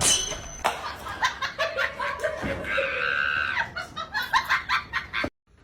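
A person laughing hard in quick, repeated bursts, with a longer high-pitched cry about halfway through. The sound cuts off abruptly near the end.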